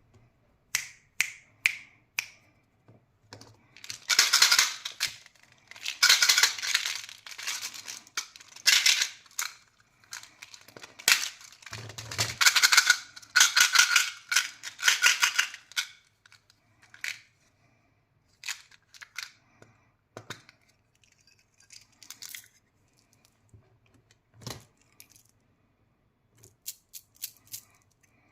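Candy packaging being handled and opened: plastic wrappers crinkling and rustling in irregular bursts, then sparse clicks and taps.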